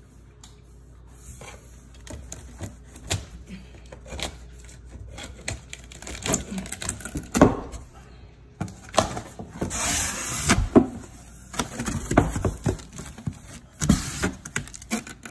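Cardboard box flaps and packing tape being pulled and handled, with a plastic bag crinkling around the appliance inside: a string of scrapes, taps and rustles, sparse at first and busier after about six seconds.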